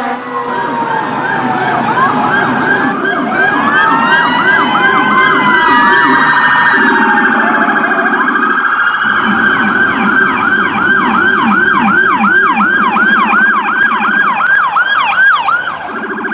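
Several electronic emergency-vehicle sirens sounding at once. A slow rising-and-falling wail early on gives way to fast repeating yelp sweeps, about three a second, over a lower, quicker warble.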